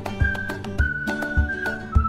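Background music: a high whistle-like melody in long held notes over chords and a steady beat of about two thumps a second.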